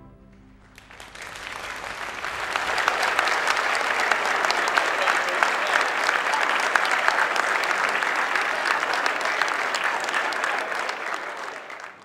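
The last orchestral chord dies away, then an audience breaks into applause that builds over about two seconds, holds steady, and fades away near the end.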